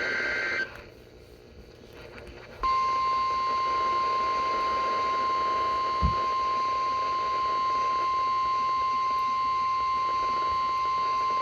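NOAA Weather Radio emergency alert. It opens with the last half second of a SAME digital header: warbling data tones. A moment of radio hiss follows, then the 1050 Hz warning alarm tone, a single steady high beep held for about nine seconds, which signals that an urgent weather alert is about to be read.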